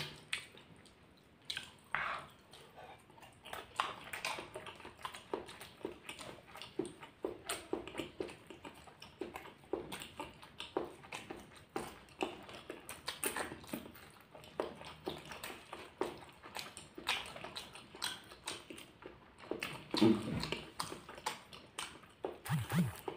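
Close-up eating sounds: chewing and biting into raw chili peppers and balado eggs with rice, many small crunches and wet mouth clicks. A short hum of voice comes near the end.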